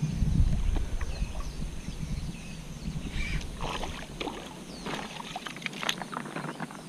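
A hooked blotched snakehead splashing at the water's surface as it is reeled in, with scattered clicks and rustles. A low rumble sits on the microphone in the first two seconds.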